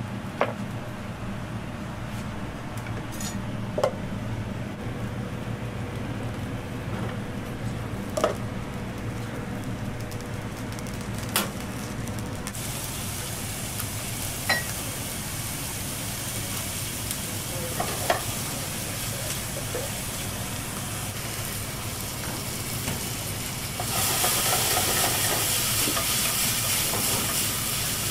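Food frying and being stirred in a pan on a gas range: a hissing sizzle comes in about halfway and grows louder near the end. Before the sizzle there is a steady low kitchen hum with occasional light knocks.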